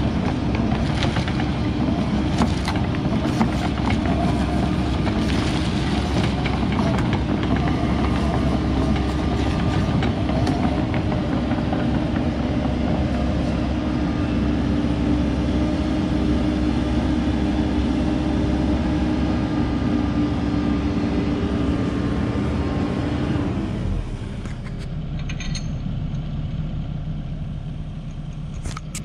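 Tracked excavator travelling on pavement: its diesel engine running under load, with the steel tracks rattling. About 24 seconds in, the machine stops and the sound drops to a quieter, lower engine idle.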